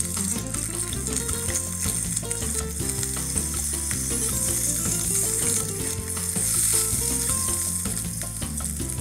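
Corn tortilla dipped in beef birria fat, sizzling as it fries in a skillet: a steady frying hiss.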